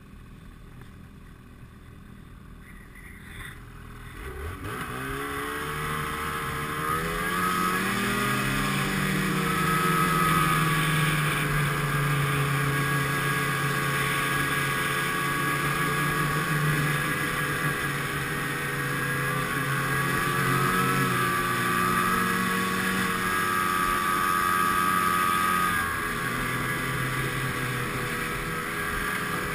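Snowmobile engine picking up speed about four seconds in, its pitch rising, then running steadily at trail speed with a high whine over the engine note.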